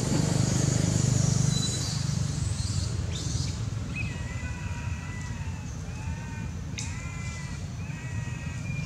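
Baby macaque giving a string of short, high, wavering cries about once a second, starting about four seconds in, over a low steady hum.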